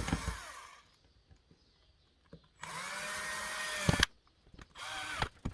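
Electric drill-driver driving screws to fix the feet to the base: a run fading out in the first second, a longer run of about a second and a half that ends with a sharp knock, and a short burst near the end.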